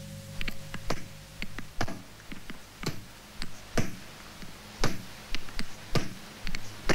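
Irregular sharp electronic clicks and ticks, two or three a second, some much louder than others, played on a Mixtur-Trautonium as part of a film score.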